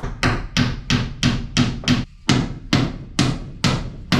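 Hammer driving nails into a sheet of T1-11 plywood siding: about a dozen steady blows, roughly three a second, with a short pause about two seconds in.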